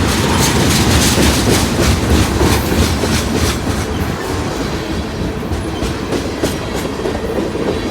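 Freight train cars rolling past, their wheels clattering over the rail joints in a steady clickety-clack that thins out in the second half.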